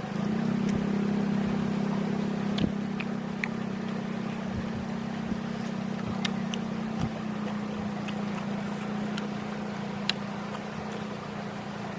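A small engine running steadily with a low, even hum, with scattered short sharp clicks over it.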